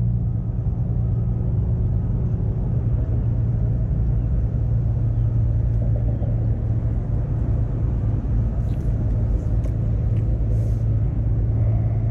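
A steady low mechanical rumble with a constant low hum, as of an engine running, unbroken throughout.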